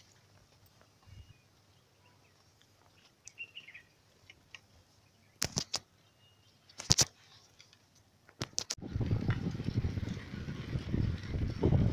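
Quiet open-air ambience with a faint bird chirp and a few sharp clicks; about nine seconds in, a loud, rough rushing noise sets in and grows.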